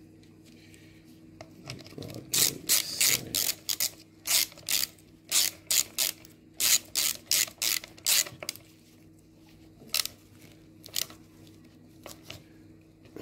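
Hand ratchet with a 10 mm socket clicking as bolts on a water pump's thermostat housing are tightened: a run of quick rattling bursts for several seconds, then a few single clicks near the end.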